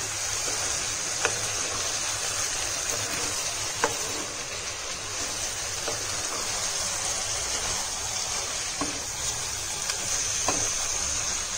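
Chopped tomatoes, green chillies, mint and coriander leaves sizzling steadily in oil and ghee in a non-stick pan while being stirred with a wooden spatula, which knocks lightly against the pan a few times. The tomatoes are being fried down until they turn to a thick paste.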